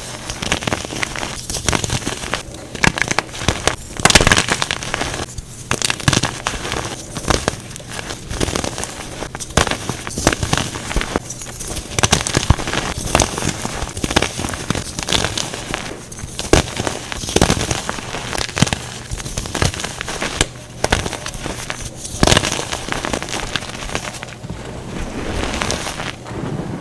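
Blocks of dyed gym chalk being crushed and crumbled, a dense crisp crackling and crunching with stronger crunches every few seconds.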